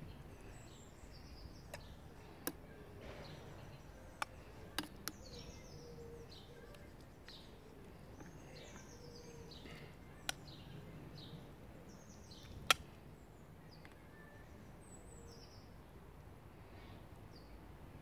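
A metal spoon clinking against a steel pot and an enamel plate as food is spooned out: about seven sharp clinks, the loudest about twelve seconds in. Birds sing throughout in the background.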